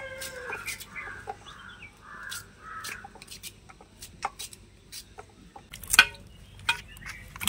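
Raw green plantain being cut by hand with a knife over a steel bowl of water: a run of light clicks as pieces drop into the bowl, with a sharper knock about six seconds in. Bird calls sound in the first three seconds.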